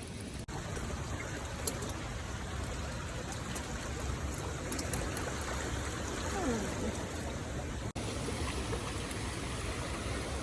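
Water running in a stream or man-made creek: a steady, even rush with no breaks except two momentary dropouts, about half a second in and near the eight-second mark.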